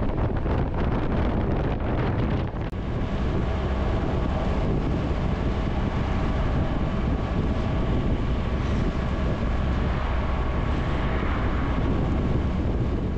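Wind rushing over the microphone of a touring motorcycle riding at road speed, with its engine and road noise underneath. There is a brief dip about two and a half seconds in, after which a faint steady engine hum shows through.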